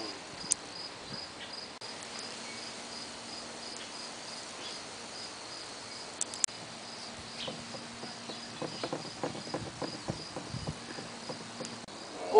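Crickets chirping steadily at a low level, about two chirps a second, with a faint steady hum and scattered light taps and rustles that become more frequent in the second half.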